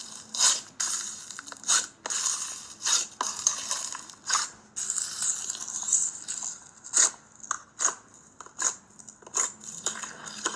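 Slime being squeezed and pressed by hand, giving irregular crackly, crunchy pops and squelches, a dozen or more in quick succession.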